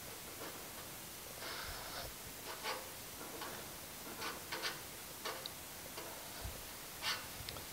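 Faint, irregular ticks and short scratchy rubs as a thumb and fingers press on and slide along the painted steel louvers of a 1950 Chevy 3100 truck cab, working low louvers back out to straighten them.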